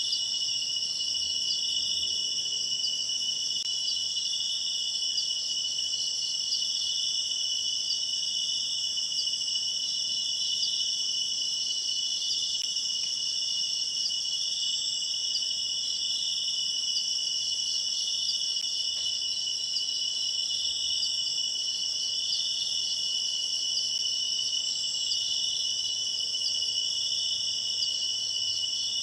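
Steady chorus of crickets and other night insects, with several high-pitched trills overlapping without a break.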